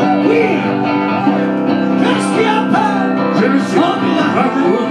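A live band playing a song, with electric guitar to the fore; the music is loud and steady.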